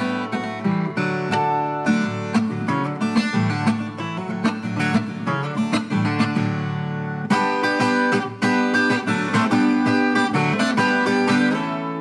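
Instrumental soundtrack music on viola caipira, the Brazilian ten-string guitar, played as fast plucked notes over low sustained bass strings. It breaks off briefly about seven seconds in and starts a new phrase.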